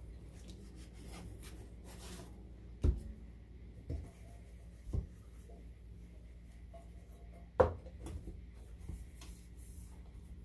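Teapots being handled: quiet handling noise with a few sharp knocks, the loudest about three seconds in and again near eight seconds.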